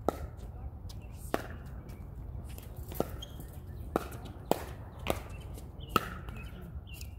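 A pickleball rally: about seven sharp pops of paddles striking the plastic ball, spaced irregularly roughly a second apart.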